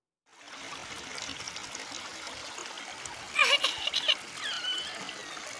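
Small waterfall spilling over rocks: a steady rush of water that cuts in suddenly a moment in. A little past halfway a brief, louder high-pitched call rises over it.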